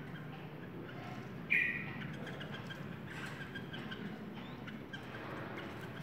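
Yellow-vented bulbuls calling in a cage. A loud short call comes about a second and a half in, followed by a run of short chirps.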